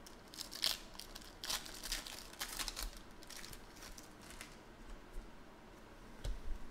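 Foil wrapper of a football trading card pack being torn open and crinkled, busiest in the first three seconds, then the cards being slid out. A low thump comes near the end.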